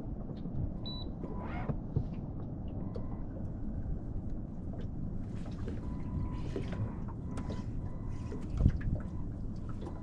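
Water lapping against a small boat's hull with wind buffeting the microphone, with scattered light clicks and one dull thump about three-quarters of the way through.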